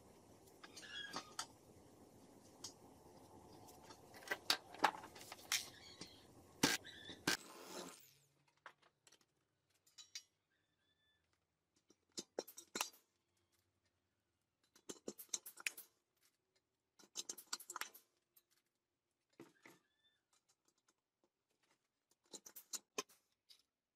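A blind rivet gun setting rivets through small steel hinges into thin sheet metal, heard as short clusters of sharp clicks and snaps with silence between them. Before that come a few sharp taps and handling clicks over a faint steady hiss.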